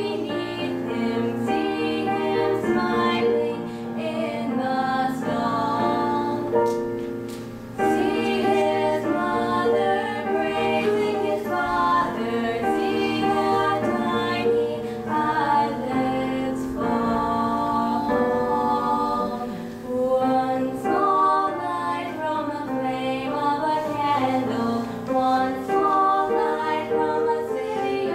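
Two girls singing a song together as a duet, in held, melodic phrases.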